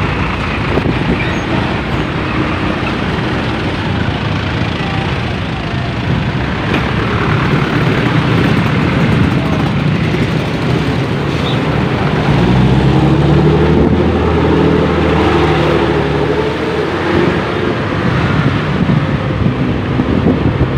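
Traffic noise heard from a moving motorcycle: a steady mix of engine and road noise beside a queue of trucks in a traffic jam. About twelve seconds in, a deeper engine hum comes in and holds a steady pitch for a few seconds.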